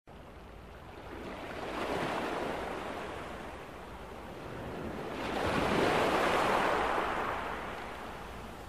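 Ocean surf: a rushing wash of waves that swells and fades twice, the second swell louder, about six seconds in.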